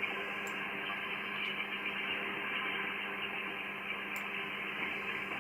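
Steady static hiss from a shortwave receiver tuned to the 80-metre amateur band, with a steady low hum under it.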